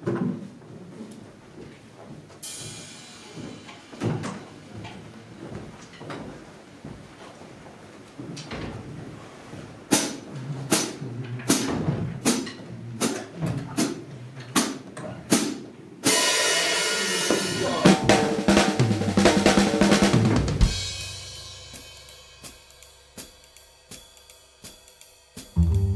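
Drum kit played loosely: scattered hits and a shimmer of cymbal, then a run of loud drum strokes about two a second that builds into a loud crash of drums and cymbals swelling for about four seconds, which then rings away slowly, a few held notes lingering in the fade.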